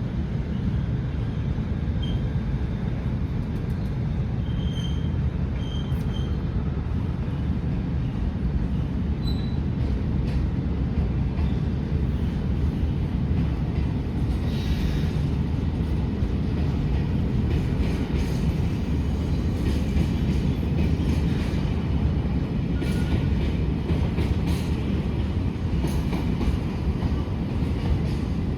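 Freight train hauled by a diesel-electric locomotive pulling out and rolling past: a steady heavy rumble, with clicks and knocks of wheels over rail joints from about ten seconds in.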